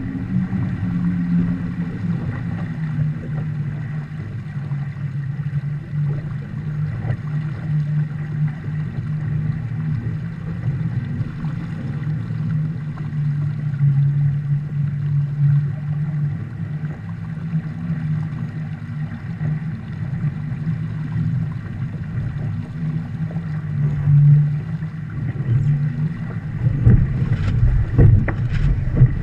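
Viper 640 sport boat sailing fast under spinnaker: a steady low rumble of water rushing along the hull and wind over the deck-mounted camera, with a few sharp knocks near the end.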